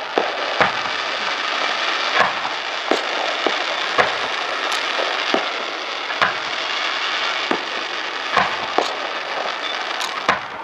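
Aerial fireworks display: about a dozen sharp bangs of bursting shells at uneven intervals, over a steady hiss.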